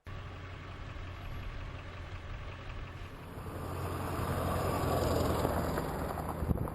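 A steady low vehicle-engine hum with a rushing noise that swells from about three seconds in.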